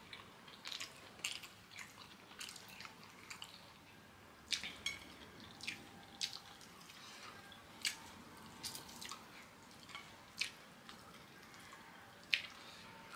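Close-up wet mouth sounds of someone eating kenkey: irregular soft smacks and clicks of chewing, some coming in quick runs, with a few sharper smacks about four and a half, eight and twelve seconds in.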